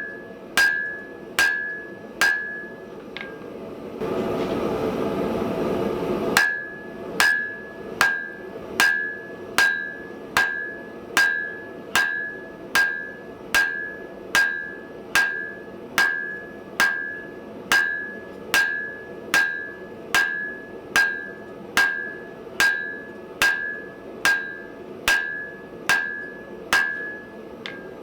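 Hand hammer striking a steel bar on an anvil, a steady blow roughly every 0.8 seconds, each with a bright ringing note. A few seconds in, the blows stop for about two seconds under a rushing noise, then the even hammering resumes.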